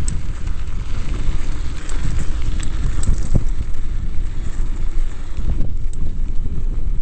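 Wind buffeting the microphone of a mountain bike's camera on a fast descent at about 35 mph, a steady loud rumble over the noise of the tyres on the rough road surface. Sharp clicks and rattles from the bike come through now and then.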